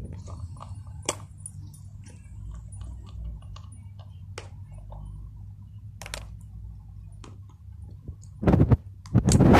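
Husky gnawing a hard plastic chew toy: scattered sharp clicks and crunches of teeth on plastic. Near the end, a few loud short bursts of noise stand out.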